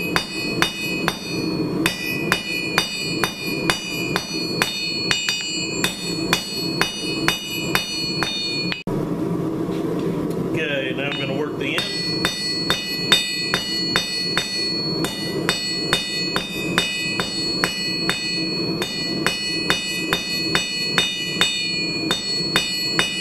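A hammer striking hot square steel bar on an anvil, tapering it to a point. Quick, even blows come about three a second, and the anvil rings after each one. The blows stop about nine seconds in and start again about three seconds later.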